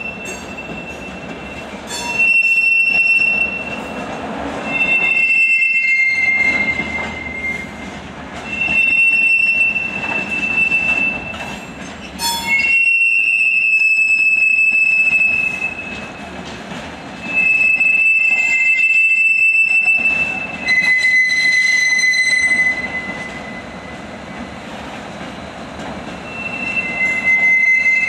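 Freight train of open ore wagons rolling slowly, its steel wheels squealing on the rails. The squeal comes in long, high screeches every few seconds over a steady rumble.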